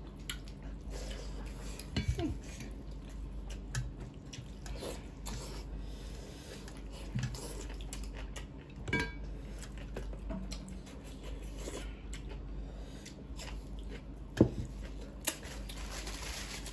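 Eating by hand from steel plates: fingers mixing rice and mutton curry, with scattered clinks and scrapes against the metal plates, and chewing.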